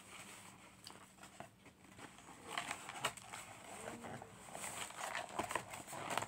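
Cardboard McNuggets box being handled and folded shut by hand: crinkling paperboard and soft clicks of the flaps, busier and louder in the second half.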